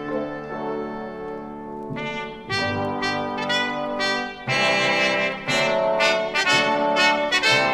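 Orchestral film-score music led by a brass section of trumpets and trombones. Held notes give way to a louder entry about two seconds in, then the brass cuts in harder about halfway through with a series of short, accented chords.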